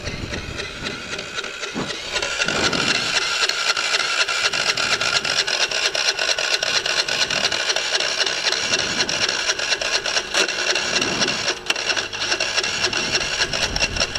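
Small moped engine being cranked over by its starter: a fast, even mechanical rattle, steady from about two seconds in, with the engine not yet catching.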